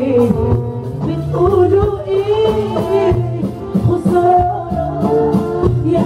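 Live music: a woman singing into a microphone over a band, her melody wavering in a vibrato ornament about two seconds in, with regular drum hits and a bass line underneath.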